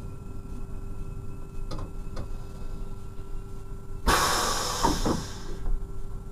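DB Class 628 diesel railcar running with a steady hum as it draws to a halt. About four seconds in comes a sudden sharp hiss of compressed air from its pneumatic system, fading out over about a second and a half, with a few knocks under it.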